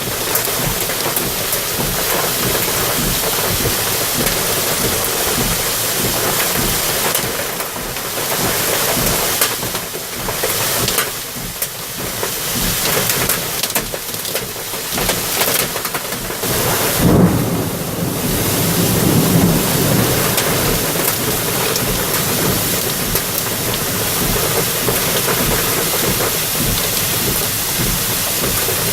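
Heavy rain pouring steadily in a thunderstorm, with a low rumble of thunder rolling for a few seconds past the middle.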